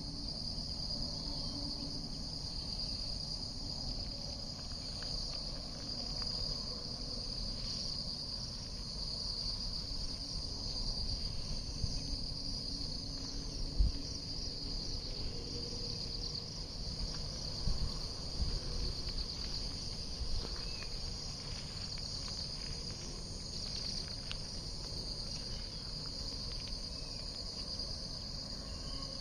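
Steady, unbroken high-pitched insect chorus, with a low rumble underneath. A single thump about halfway through is the loudest moment.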